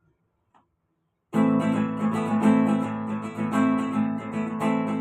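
Acoustic guitar strumming a song's introduction, starting abruptly about a second in with steady rhythmic chords.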